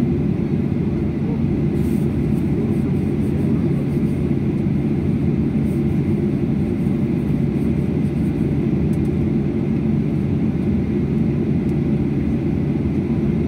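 Airliner cabin noise while taxiing: the jet engines at low taxi power and the rolling of the plane make a steady, low drone with an even hum, heard from inside the passenger cabin.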